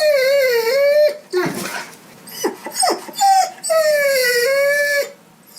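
Dog whining and crying for food: a long, wavering high whine, then a few short yelps, then a second long whine that dips in pitch and levels off.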